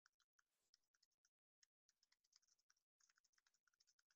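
Near silence, with very faint, irregular clicks of computer keys being typed.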